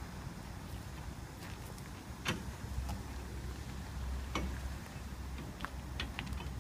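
A Debon Cargo P2 enclosed trailer is wheeled by hand across a gritty lot, giving scattered sharp clicks and scuffs over a low steady rumble.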